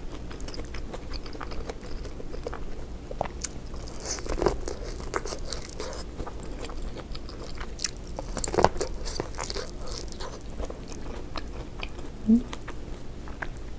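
A person biting and chewing food close to the microphone, with wet crackles and crunches and a few louder bites about four and a half and eight and a half seconds in.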